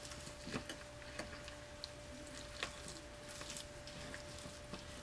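A utensil stirring thick brownie batter in a glass bowl: soft squelching of the batter with light, irregular clinks of the utensil against the glass.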